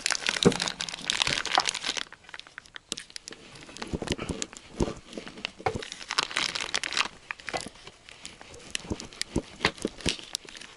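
Plastic wrapping crinkling in irregular bursts while a kitchen knife cuts a slab of salo (cured pork fat) on a wooden tabletop, with many sharp clicks of the blade and wrapper; loudest in the first couple of seconds.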